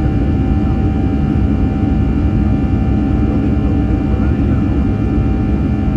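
Cabin noise of an Airbus A319 in flight: a steady drone of engine and airflow, with a low rumble and several steady humming tones held throughout.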